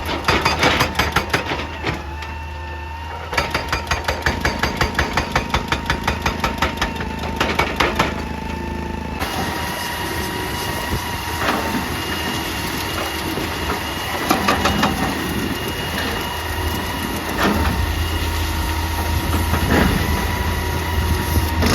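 Excavator's hydraulic rock breaker hammering on rock in two rapid runs of blows, several a second. Then the machine's engine runs on under load, with scattered knocks and scrapes of rock.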